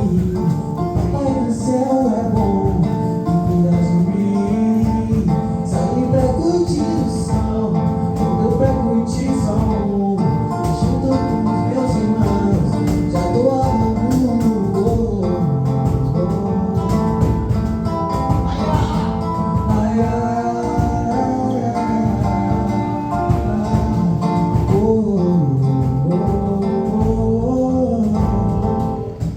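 A man singing a song with plucked guitar accompaniment, his melody line gliding continuously over the strummed strings.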